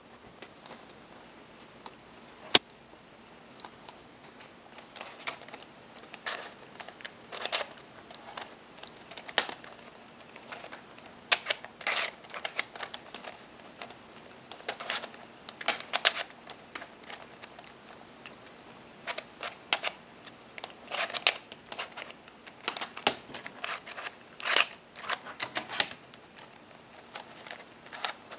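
Triamese twisty puzzle, three joined plastic cubes, being turned by hand: its layers click and clack in irregular bursts, with one sharp click about two and a half seconds in.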